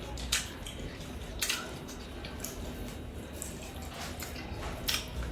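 Mukbang eating sounds: wet mouth clicks and smacks of chewing chicken biryani, with a few short sharp ones standing out over a low steady background.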